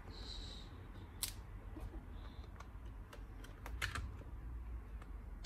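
Light clicks and taps from handling a laptop battery and unplugging its connector from the motherboard, with a short scrape near the start and the sharpest click near the end, over a low steady hum.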